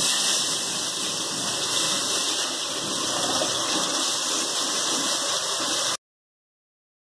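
Slices of brinjal (eggplant) sizzling as they shallow-fry in hot oil in a kadai, a steady hiss. It cuts off abruptly about six seconds in.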